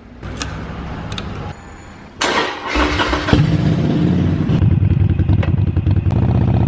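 Harley-Davidson Forty-Eight Sportster 1200 V-twin with Vance & Hines Mini Grenades exhausts starting up: a couple of clicks, a short burst of the starter cranking, then the engine catches about three seconds in and settles into a loud, pulsing idle.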